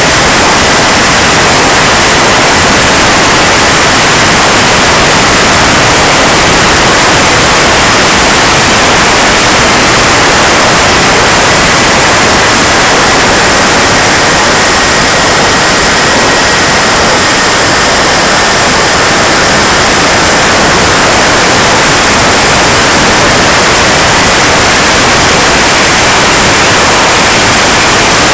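KingTech K80 model jet turbine running: a steady, loud hissing rush with a faint high whine that sags slightly in pitch and then rises again.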